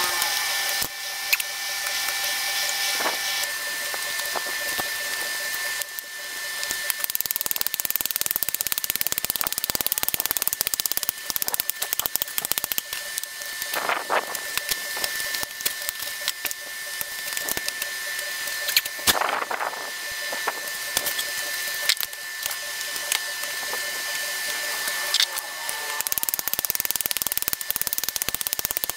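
Charcoal crackling and popping in a small tin-can forge under forced air from a pipe, with a steady hiss and a thin constant whine. Two brief louder sounds come near the middle.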